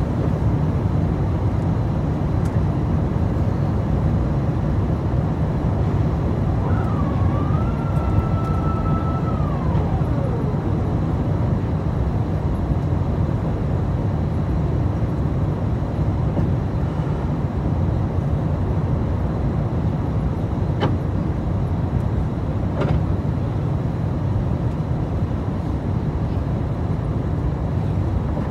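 Steady roar of cabin noise inside an Airbus A350 on approach with its landing gear down, from its Rolls-Royce Trent XWB engines and the airflow. About seven seconds in a brief whine rises, holds and then falls away, and two faint clicks a couple of seconds apart come later on.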